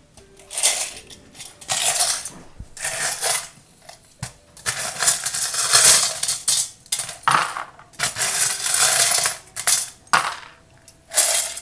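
A handful of small metal trinkets (shaped paper clips, coins and charms) clattering as a hand rummages through them in a bucket and scatters them onto a tray, in a string of short jingling rattles.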